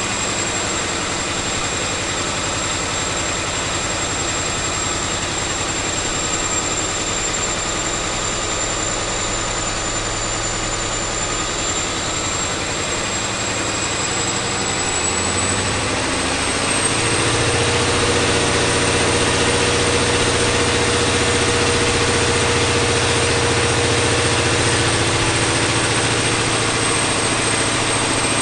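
Caterpillar 3508B twin-turbo V8 diesel engine running on a dynamometer, with a high steady turbo whine above the engine note. About sixteen seconds in, the engine note deepens and gets louder as the load or speed steps up, then holds steady.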